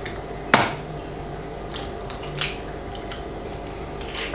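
Eggs being cracked open for a muffin batter: a sharp tap about half a second in, a second tap about two and a half seconds in, and a third near the end.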